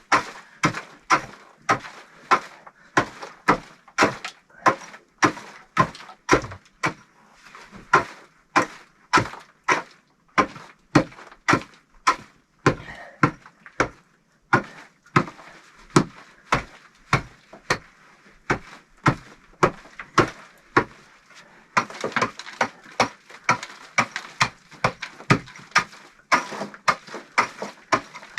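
Steady, rhythmic knocking, a bit over two sharp hits a second, kept up throughout, the kind of hand-tool strikes made in building a brick stove.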